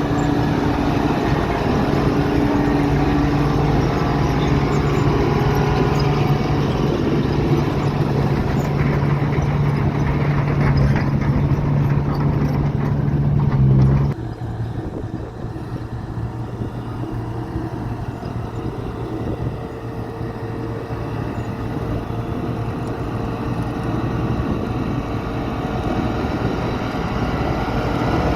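Heavy diesel engines of construction machinery running steadily. About halfway through, the sound cuts abruptly to a different, quieter engine note.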